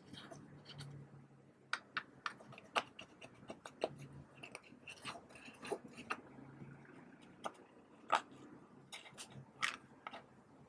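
A small plastic spatula scraping and chipping pressed eyeshadow out of a palette's pans, with irregular sharp clicks and crumbly scratches as the powder breaks up and drops into a dish.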